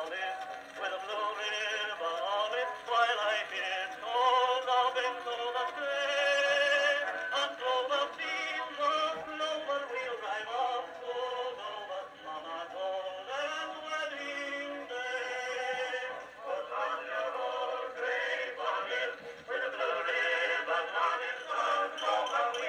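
An old acoustic record playing on a gramophone: a singing voice with musical accompaniment, thin-sounding, with almost no deep bass or high treble.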